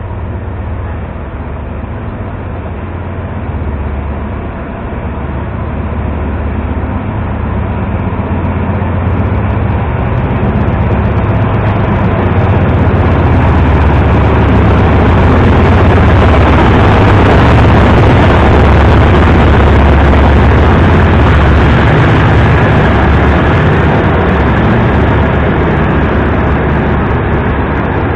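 Diesel locomotive hauling a passenger train into a station. Its engine rumble grows steadily louder as it approaches and comes alongside, loudest about two-thirds of the way through, then the carriages roll past on the rails.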